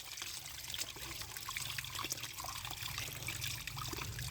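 Water running and trickling as muddy plastic toy vehicles are washed by hand, with small scattered clicks and a steady low hum underneath.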